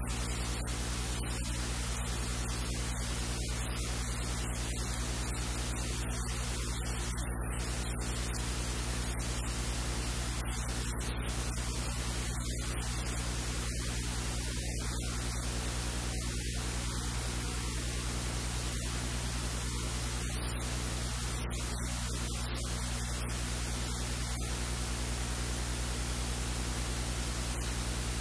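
Steady electrical hum with a constant hiss, unchanging throughout: noise on the recording rather than any kitchen sound.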